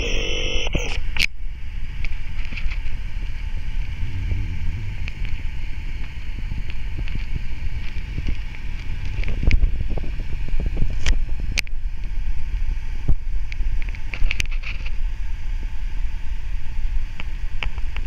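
Fast-flowing river water rushing below a waterfall, a steady low noise, with wind buffeting the microphone and a few brief clicks.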